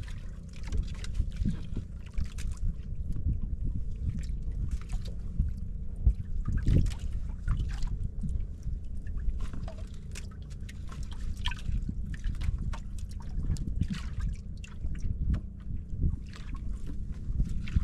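Water sloshing and splashing in irregular small strokes over a steady low rumble.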